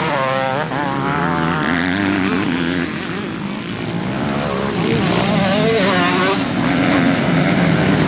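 Several motocross bike engines revving on a dirt track, their pitch rising and falling again and again as the riders work the throttle through a turn.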